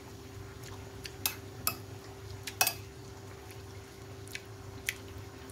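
Metal spoon clinking and scraping against a ceramic plate while eating: about five short sharp clinks, the loudest about halfway through, over a steady low hum.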